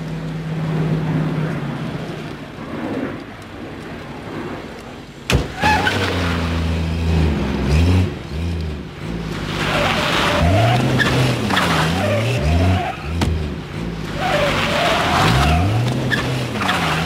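A car engine revving hard as the car pulls away, its pitch rising and falling again and again, with tyres squealing twice. A sharp bang comes about five seconds in.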